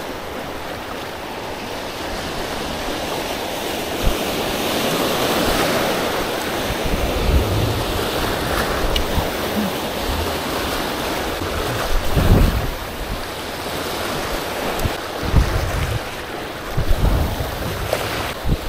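Waves breaking on a beach, a steady rushing wash that swells and falls, with wind gusting on the microphone as low rumbles about two-thirds of the way in and again near the end.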